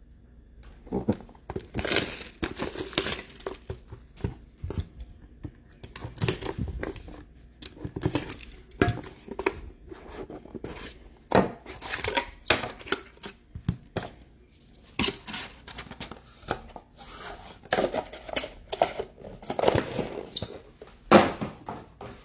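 Trading-card packaging being torn open and crinkled: irregular rips and rustles of wrappers and box seals as football card boxes are opened.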